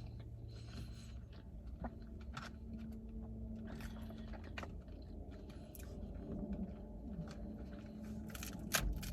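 A person chewing and biting into seafood boil, with scattered small clicks and crunches.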